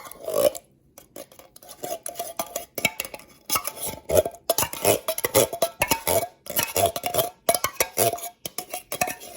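A spoon scraping and clinking rapidly against a container, many quick strokes, some with a short ring, as condensed cream of celery soup is stirred into chicken broth.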